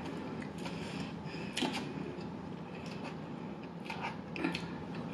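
Eating sounds: a plastic fork picking at salad in a foam takeout container and crunchy chewing, heard as a few short crisp crunches and clicks over a steady low hum.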